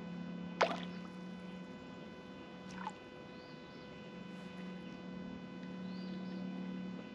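Spinning reel being cranked slowly to retrieve a jig, a low steady whir that stops for a moment near the middle and starts again. Two sharp falling chirps cut across it, a loud one about half a second in and a weaker one near three seconds.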